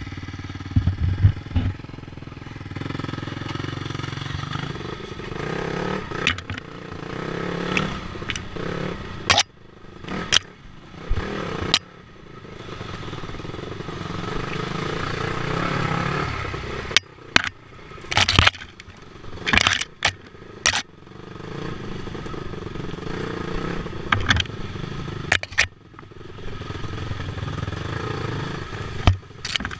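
Dirt bike engine revving up and down as the bike works slowly along a rough, brushy trail. Many sharp knocks, clatters and scrapes break in throughout.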